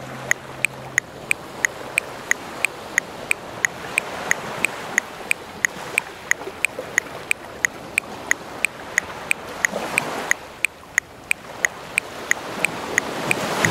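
Metronome ticking steadily at 180 beats per minute, about three sharp clicks a second, over the continuous wash of ocean waves on a shore; a wave swells up around ten seconds in.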